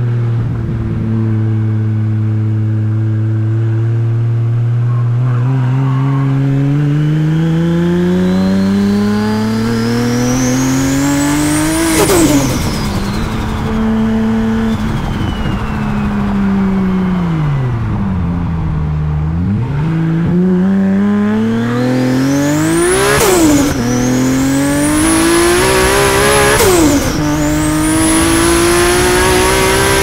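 Big-turbo Toyota Supra 2JZ straight-six accelerating hard, revs climbing in one long pull before dropping sharply at a gear change about twelve seconds in. The revs then sag as the car eases off and climb again through three quick upshifts near the end. A high turbo whistle rises with the revs and breaks off at each shift.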